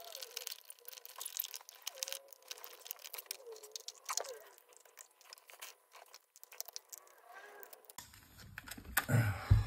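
Screwdriver clicks and scrapes as a metal-fronted double wall socket is unscrewed and prised off the wall, the faceplate scraping and crunching against the grout around it. A louder handling noise near the end.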